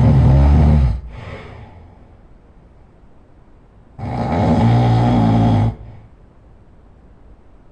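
A person snoring loudly, one deep snore at a time. One snore ends about a second in and trails off in a softer breath; a second snore of under two seconds comes about four seconds in.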